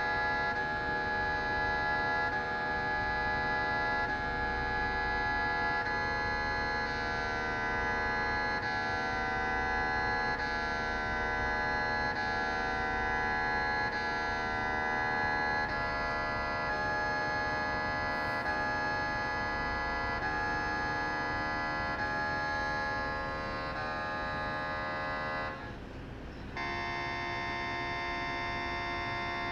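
Philips 1.5T MRI scanner's gradient coils sounding a steady, many-toned drone during a scan sequence. About 26 seconds in it drops out briefly, then switches to a different steady tone pattern.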